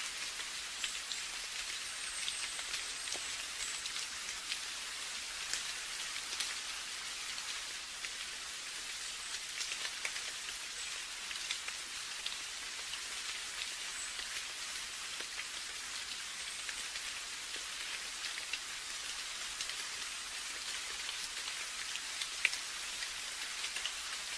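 Steady rain falling: an even hiss with many separate drops ticking through it.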